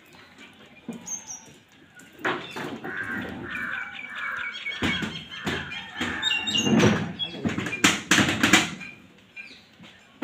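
Crows cawing and small birds chirping, mixed with knocking and clattering that is loudest about seven to eight and a half seconds in.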